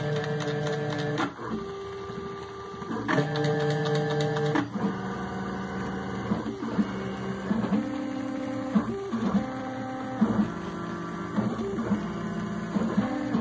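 Stepper motors of a homemade CNC router whining as they drive the gantry along roller-chain racks, the tone jumping to a new steady pitch with each move, with short clicks where the moves change.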